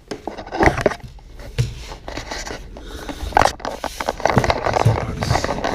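Handling noise: irregular knocks, scrapes and rubs.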